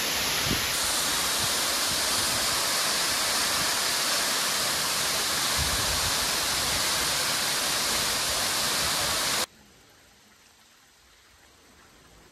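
Steady rushing of a waterfall pouring into a plunge pool. About nine and a half seconds in it cuts off suddenly to a faint, quiet background.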